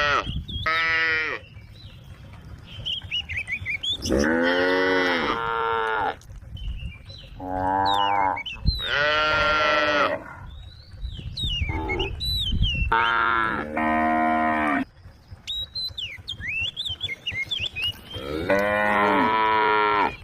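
Cows mooing: about five loud, drawn-out moos, each one to two seconds long, a few seconds apart.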